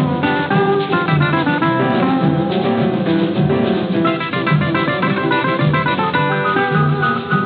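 Background music: an instrumental passage of a Brazilian samba-style song, led by fast plucked acoustic guitar.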